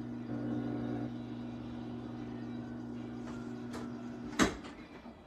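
Electric pottery wheel's motor humming steadily while the wheel spins. About four and a half seconds in comes a sharp knock, and the hum stops.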